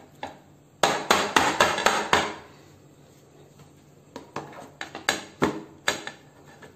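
A plastic food container of ice cream mix knocked down several times in quick succession on a plate to settle the mix and release air bubbles. In the second half its plastic lid is pressed on, with a few scattered clicks and knocks as it snaps shut.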